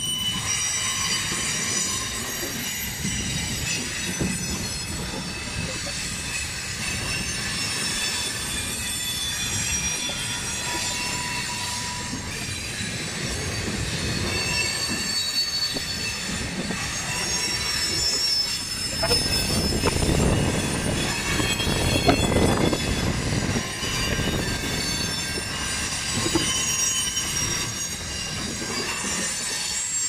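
Freight cars of a CN train rolling past, their steel wheels squealing on the rails in several high-pitched tones over a steady rumble and clatter of wheels on track. The rumble swells louder for a few seconds past the middle.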